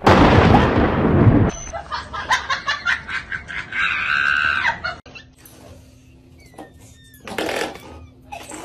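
A sudden, very loud thunderclap in heavy rain, dying away after about a second and a half. Scattered crackles follow, with a high cry about four seconds in, then a quiet stretch with a faint steady hum.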